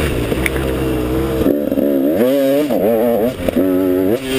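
KTM 200 XC-W two-stroke single-cylinder dirt bike engine under way, its revs rising and falling several times as the throttle is opened and rolled off, over a rushing wind noise.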